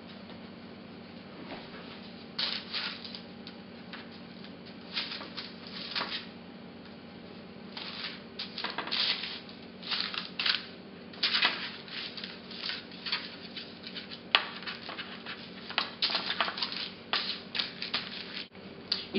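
Baking parchment rustling and crinkling on a metal baking tray in short, irregular bursts as pizza dough is pushed and stretched out by hand on it.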